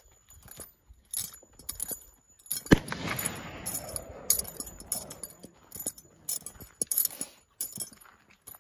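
Walking footsteps on gravel with metal spurs jingling at each step. About three seconds in comes a single loud gunshot that echoes for about two seconds.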